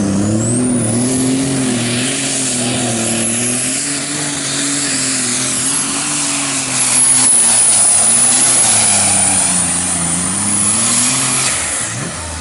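Modified John Deere pulling tractor's engine running hard under load as it drags a weight-transfer sled, its note wavering up and down with a high whistle that rises in the first second and holds. It is loudest in the middle and drops off near the end as the pull finishes.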